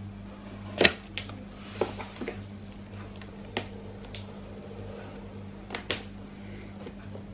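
Sharp plastic clicks and knocks at irregular intervals as the clear plastic display case of a GoPro Hero 4 Silver is handled and opened to take the camera out, the loudest click coming about a second in.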